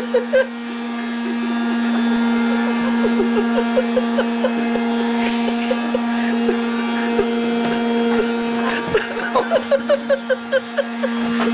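Vacuum cleaner running with a steady, even hum.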